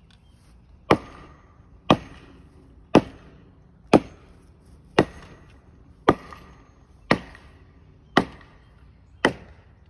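Hammer striking the base of a wooden utility pole about once a second, nine sharp blows. This is a lineman sounding the pole for rot: a hard thump means sound wood, and a low, hollow thump means decay.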